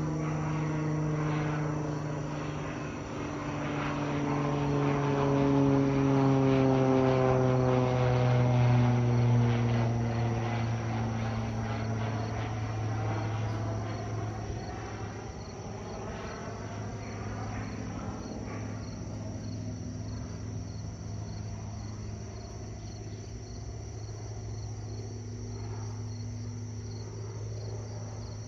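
A Cessna 182 Skylane single-engine propeller plane passes low overhead as it descends to land. Its engine and propeller drone grows loudest a few seconds in and falls in pitch as it goes by, then fades into a low steady hum. Crickets chirp steadily throughout.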